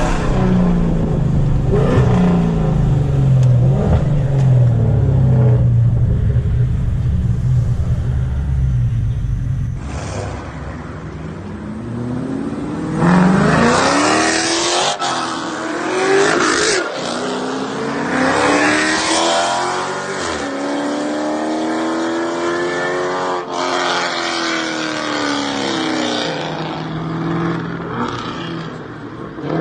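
Loud performance car engines running at low revs, then revving and accelerating hard several times, their pitch rising and falling as the cars pull away and pass.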